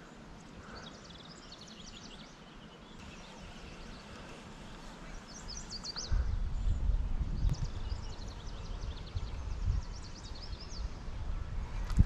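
Outdoor river ambience: small birds chirping and trilling high up in short repeated phrases. From about halfway through, a low rumble of wind buffeting the microphone comes in and grows louder.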